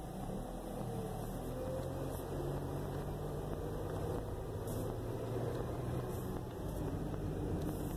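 Steady car engine hum and road noise heard from inside the car's cabin, the low engine note growing a little stronger about a second and a half in.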